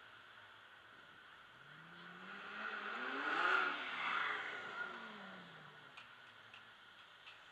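Lamborghini Gallardo's V10 engine accelerating past, its note climbing in pitch and loudness to a peak about three and a half seconds in, then dropping in pitch and fading as the car pulls ahead. A faint steady drive hum underlies it.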